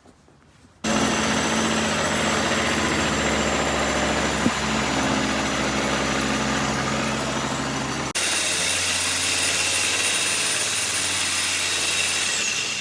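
Engine-driven groundworks machinery running steadily, starting abruptly. About eight seconds in the sound switches suddenly to a different machine with a steady high whine, which falls in pitch just before it cuts off.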